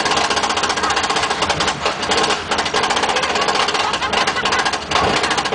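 Roller coaster train clattering on its steel track with a fast, continuous rattle.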